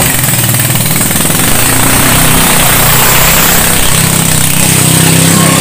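An 18 hp Ducar engine on a small racing boat running loud at full throttle as the boat speeds past, with the hiss of its spray.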